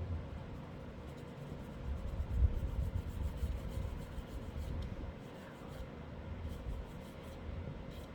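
Soft rubbing and scratching of oil paint being worked onto a small MDF panel, with low bumps that are strongest about two to three seconds in.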